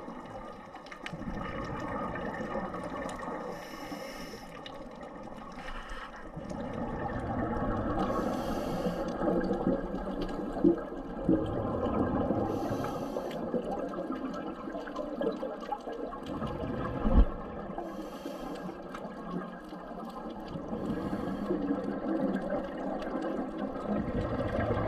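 Scuba diver breathing through a demand regulator underwater: a short hiss on each inhale, about every four to five seconds, between stretches of bubbling from the exhales. A few sharp knocks, the loudest about 17 seconds in.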